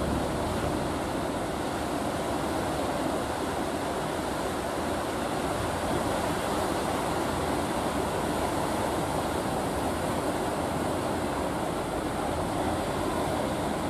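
Steady rush of surf and breaking waves, with the faint steady hum of a fishing boat's engine under it.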